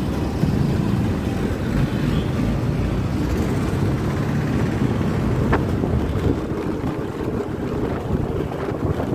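Steady wind rushing over the microphone, mixed with the low rumble of engine and road noise from riding through city traffic.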